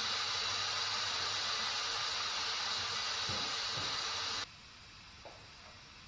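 Air hissing steadily out of a truck tire's valve stem as the tire is let down for breaking it off the rim. The hiss stops abruptly about four and a half seconds in.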